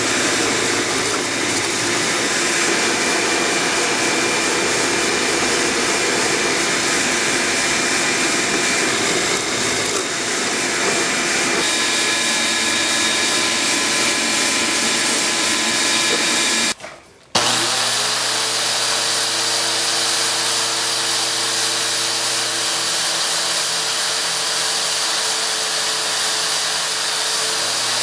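Power tool running steadily on wood. After a brief break about seventeen seconds in, a motor starts up with a rising high whine and runs on with a steady hum.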